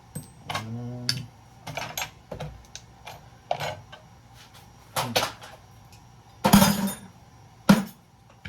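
Small metal scrap parts from a stripped breaker box clinking and clattering as they are handled and dropped, a string of separate knocks with the loudest clatter about six and a half seconds in and a sharp knock just after.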